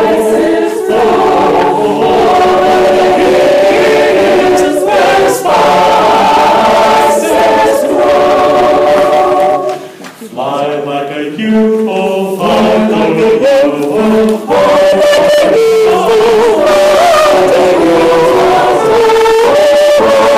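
A choir singing, several voices holding sustained notes together. The singing drops off briefly about halfway through, then comes back in.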